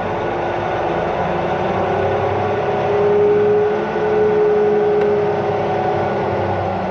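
Caterpillar 740 articulated dump truck's diesel engine running as the truck pulls forward, with a whine that swells louder about three seconds in.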